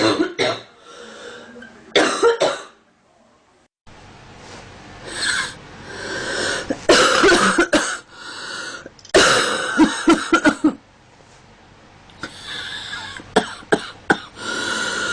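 A young woman coughing in several separate bouts a few seconds apart, each a cluster of sharp coughs.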